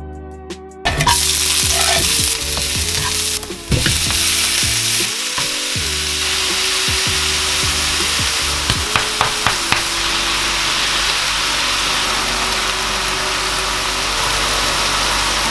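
Extra-lean beef mince frying in a hot pan on the stove, a loud steady sizzle that starts suddenly about a second in. It is stirred with a utensil, with a few light clicks against the pan about nine seconds in.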